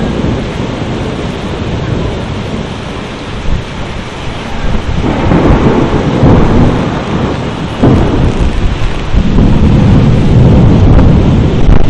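Thunderstorm with heavy rain and rolling thunder. A deep rumble swells about five seconds in, then grows loud again with a sudden jump near eight seconds and stays heavy.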